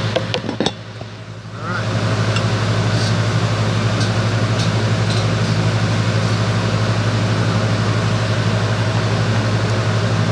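Steady loud machine hum with a strong low drone. A few sharp clicks come near the start, then the hum drops away briefly and swells back in about two seconds in.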